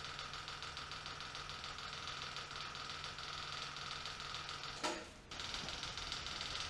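Electric fuel pump ticking rapidly and evenly with the key on, pumping fuel to fill the carburetor; it keeps running because the float bowl is not yet full. About five seconds in there is a brief louder noise and a short dip.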